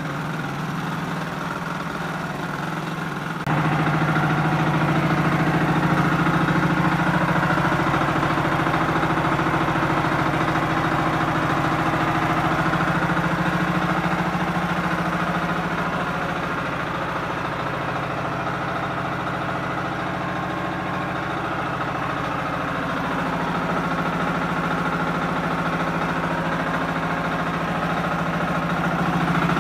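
Super Kama 14 HP single-cylinder diesel engine running steadily on its break-in run. It gets louder about three and a half seconds in. Its note dips slightly past the middle and comes back up near the end.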